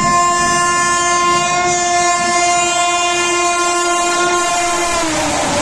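Indian Railways express locomotive's horn, held as one long multi-tone blast as the train approaches at speed. About five seconds in, the horn's pitch drops as the locomotive passes, and the rushing noise of the coaches going by takes over.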